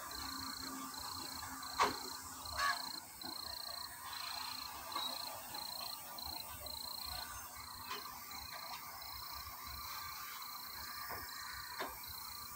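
Crows cawing several times, the loudest calls about two seconds in, over a steady high insect chirp that pulses about three times a second.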